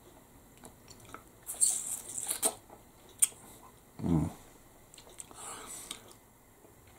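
Mouth sounds of eating a steak bridie: wet chewing and lip-smacking, loudest between about one and a half and two and a half seconds in, with a sharp click a little later. About four seconds in comes a short low hum from the eater, falling in pitch.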